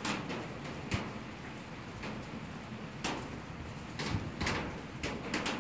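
Fire burning in a metal fire barrel, with sharp pops and crackles about once a second over a steady hiss of rain.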